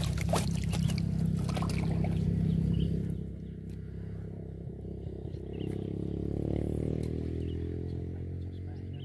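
An engine running with a steady low hum, louder for the first three seconds and then softer, its pitch rising a little around six seconds in.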